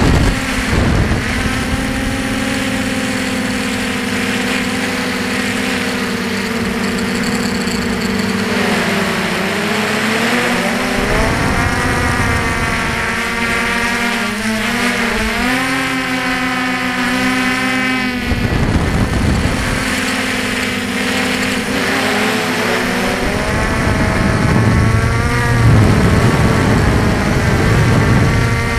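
FPV quadcopter's motors and propellers whining. The pitch holds steady at first, then swings up and down repeatedly as the throttle changes, with a few low rumbles of wind on the microphone.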